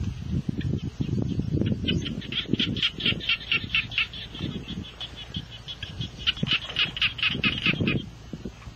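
Rapid high chattering calls in two runs, about two and six seconds in, over rustling and scraping of dry leaves, twigs and soil being handled.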